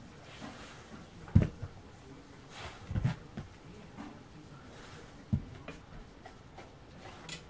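A few short, low thumps and soft rustles, the loudest about a second and a half in, from a dog shifting its weight on an inflatable balance disc and foam platform on a carpeted floor.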